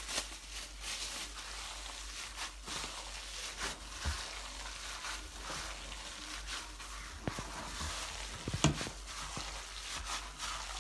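Hand in a thin plastic glove mixing and squeezing raw minced chicken momo filling in a steel pot: irregular wet squishing with the crinkle of the plastic glove, and one louder knock a little over eight seconds in.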